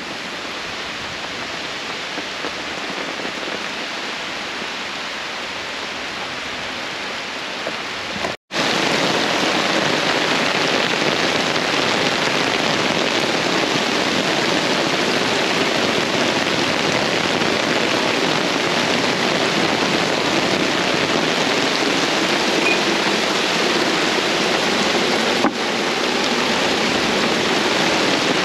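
Heavy rain pouring down with a steady, dense hiss. It breaks off for an instant about eight seconds in and comes back louder.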